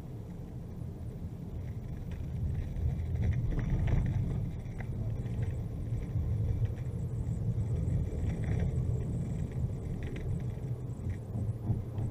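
Low, steady rumble of a car's engine and tyres heard from inside the cabin while driving, growing louder over the first few seconds.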